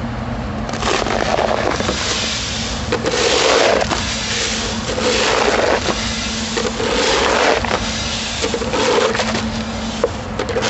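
Shelled corn pouring through a grain pit grate, a continuous rushing hiss of kernels that swells and eases every couple of seconds, over a steady low hum.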